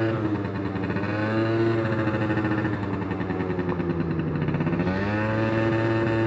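Sachs Speedjet RS scooter's 50cc two-stroke engine running while riding. Its pitch drops as the throttle eases off about three seconds in, then rises again a little before five seconds.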